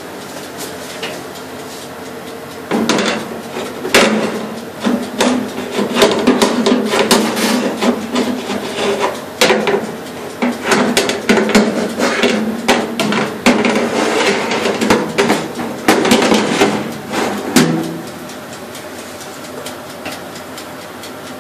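Metal baking trays being handled in an oven: a long run of irregular knocks, clatter and scraping against the oven racks, which starts about three seconds in and stops a few seconds before the end.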